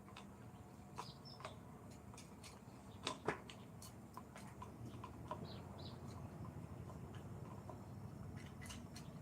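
Small birds chirping faintly in short, high chirps over a steady low hum, with a single louder knock about three seconds in.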